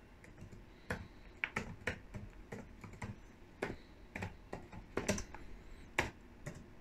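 Typing on a computer keyboard: slow, uneven keystrokes, each a short click.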